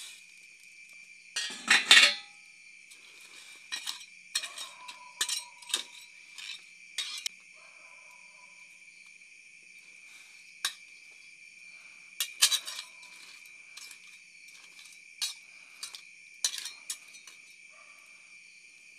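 Metal ladle and stainless-steel lid clanking against a stainless pot of boiling seafood: a loud clatter about two seconds in as the lid comes off, then scattered clinks of stirring. Crickets chirr steadily throughout.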